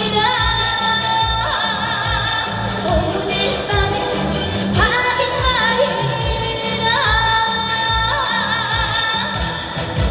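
Female trot singer singing over accompaniment with a steady beat, holding long notes with vibrato.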